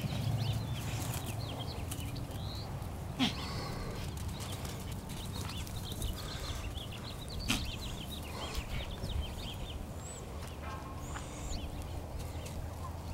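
Many short, high chirps from small birds calling on and off over a low rumble. Two sharp knocks sound about three and seven seconds in.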